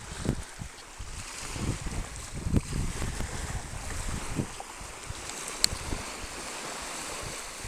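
Wind buffeting the microphone in irregular low gusts, heaviest in the first few seconds, over a steady hiss of surf. A single sharp tick about five and a half seconds in.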